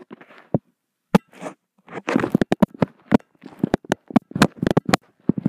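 Handling noise from a phone held close: irregular clicks, taps and rustling, sparse at first and coming thick and fast from about two seconds in.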